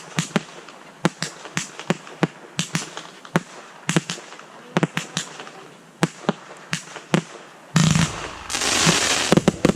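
Fireworks going off: a fast, irregular string of sharp bangs, then a deeper boom about eight seconds in, followed by a dense crackling hiss and a few more pops near the end.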